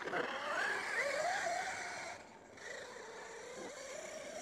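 Whine of a Losi Super Baja Rey 2.0's electric brushless motor and drivetrain, its pitch rising and falling with the throttle. It gets fainter about two seconds in as the 1/5-scale truck drives away.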